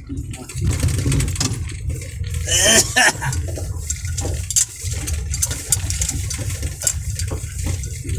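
Inside a moving Chevrolet Tavera on a broken road: a steady low rumble from engine and tyres, with frequent irregular knocks and rattles as the car jolts over the rough surface. A brief louder burst comes about three seconds in.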